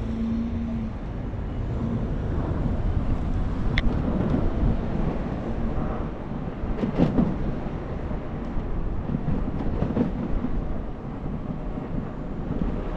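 Wind rumbling on the camera microphone and road noise while riding an electric scooter, with a few light clicks and knocks along the way.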